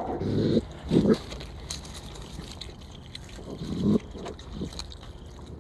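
Raccoon eating at close range from a small dish, making a few short chewing and snuffling noises: one at the start, one about a second in and one near four seconds.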